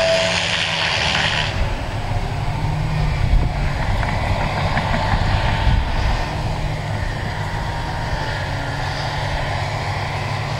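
Tracked excavator's diesel engine running under load while its hydraulic stump grinder chews into wood, with a steady low rumble. A hissing spray of grinding fades about a second and a half in, leaving the engine and spinning grinder with scattered crackles of chips.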